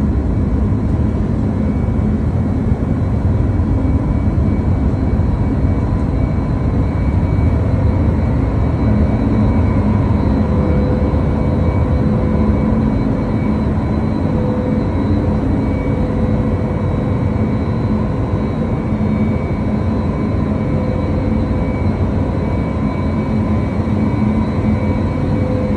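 Self-unloading freighter's cargo tunnel machinery running during unloading: the conveyor belt and rollers and the hopper gate vibrators make a loud, steady rumble with a few steady hum tones over it.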